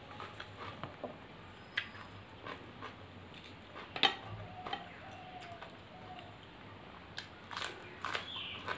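Eating sounds: fingers mixing fried rice and chicken curry on a steel plate and chewing, with scattered soft clicks and one sharp click about four seconds in.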